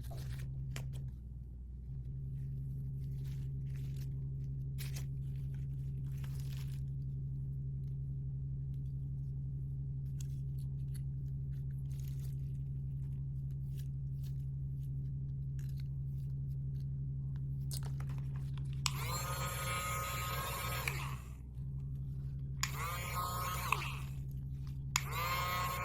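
Plastic toy packaging being handled and opened, with faint taps and ticks, then several louder crinkling, squeaking bursts near the end, over a steady low hum.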